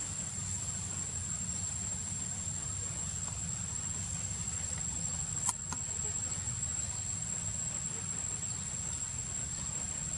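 Insects calling steadily in an unbroken high-pitched tone over a low rumble, with one sharp click about five and a half seconds in.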